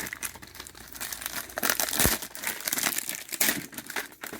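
A trading-card pack wrapper crinkling and tearing as it is pulled open by hand, in irregular crackles, with a single thump about two seconds in.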